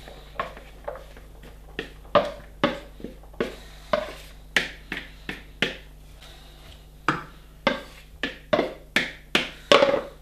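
Sharp, irregular taps and knocks, about twenty of them with the loudest near the end, as a bowl of chopped vegetables is emptied into a stainless steel pot and knocked against it.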